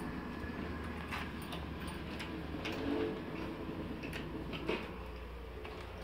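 A few short, faint clicks and taps of a metal smart door lock being handled and its manual key brought to the keyhole on the lock's underside, over a steady low hum.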